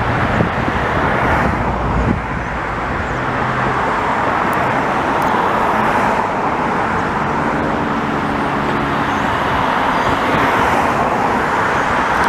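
Jet airliner engine noise: a steady, loud rush with a faint low hum underneath, swelling slightly over the middle seconds.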